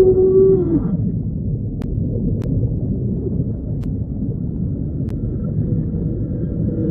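Dinosaur sound effect: a held, pitched creature call that slides down and ends within the first second, then a long low rumbling growl.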